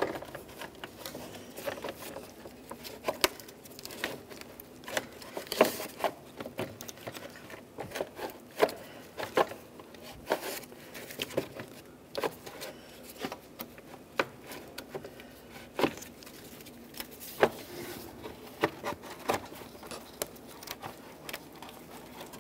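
Irregular light clicks, knocks and rattles of a plastic radiator cooling fan shroud being worked loose from its clips and slid upward by hand.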